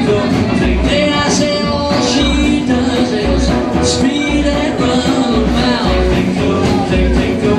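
Live rockabilly band playing: upright double bass, acoustic guitar and drums at a steady beat.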